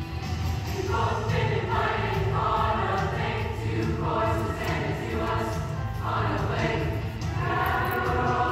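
Youth choir singing on stage, its sung phrases swelling and breaking every second or so.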